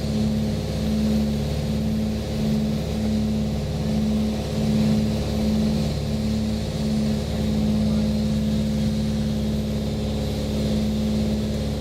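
Cessna 310's twin six-cylinder piston engines and propellers heard from inside the cockpit, a loud steady drone. Its low hum pulses about twice a second, the beat of the two engines running slightly out of sync, and settles into an even tone about seven seconds in.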